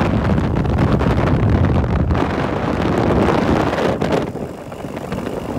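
Wind buffeting the microphone of a riding bike, a loud steady rumble that eases briefly a little after four seconds.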